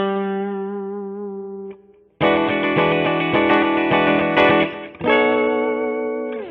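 Electric guitar played through an amp on a Lace Alumitone bridge pickup split to single-coil mode, with a bright, Tele-like tone. A single held note rings out and fades, then, after a short gap, chords are strummed, restruck and left to ring until they are damped near the end.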